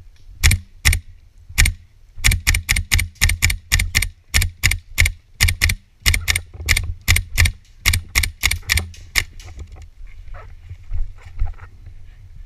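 Airsoft rifle firing a fast run of single shots, sharp cracks at up to about four a second, stopping about nine seconds in with only faint clicks after. The sound is dulled by a sealed waterproof camera housing.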